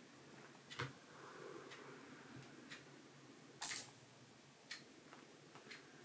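Clock ticking about once a second in a quiet room, with one sharper, louder click about three and a half seconds in.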